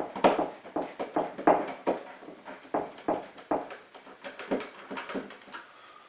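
Screwdriver backing a light switch's mounting screw out of a plastic wall box: an irregular run of short clicks, about three a second, dying away after about four seconds.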